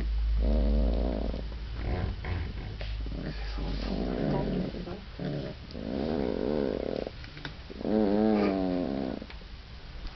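Afghan Hound puppies vocalizing in four drawn-out, wavering whines and grumbles, each a second or so long with short pauses between.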